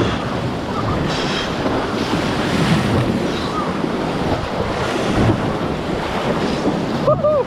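River whitewater rushing and splashing around a paddled raft, with wind buffeting the microphone. The noise is loud and steady throughout.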